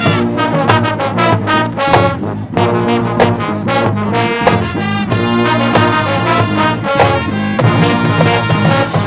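High school marching band playing: loud brass chords carried by trombones and trumpets, punctuated by sharp drumline hits.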